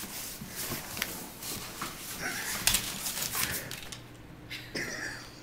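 A dog rummaging in a cardboard box: cardboard rustling and scraping with scattered clicks, and a sharp knock about two and a half seconds in, the loudest sound. It quietens after about four seconds.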